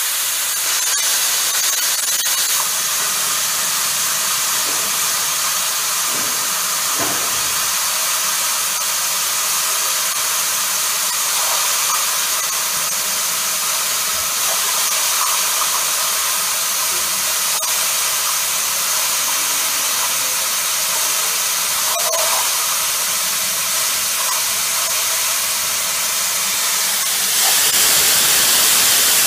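Hypertherm plasma cutter torch cutting steel plate: a steady, loud hiss of the air-plasma arc as the torch is dragged slowly along the cut line, growing louder near the end.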